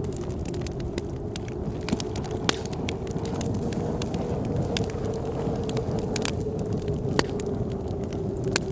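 Wood fire crackling, with scattered sharp pops, over a steady low rush of blizzard wind that carries a faint, wavering howl.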